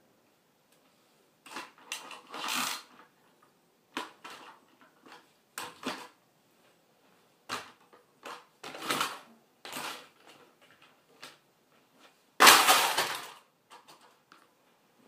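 High-heeled shoes stepping among plastic toy cars scattered on the floor, kicking and crushing them: about eight separate clattering crunches at uneven intervals, the loudest and longest about twelve seconds in.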